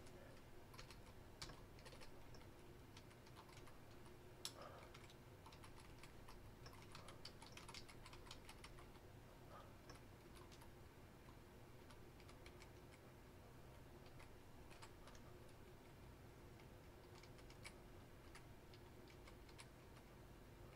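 Faint typing on a computer keyboard, keystrokes coming in short runs with pauses between them, over a low steady hum.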